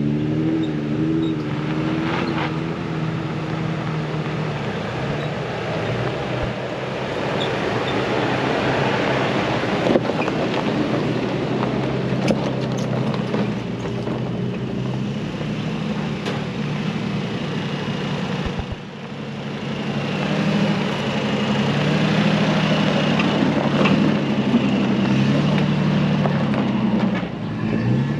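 Engines of off-road 4x4 trucks running at low speed as they crawl one after another up a rutted dirt trail, the engine pitch wavering as the throttle is worked, with a few sharp knocks along the way.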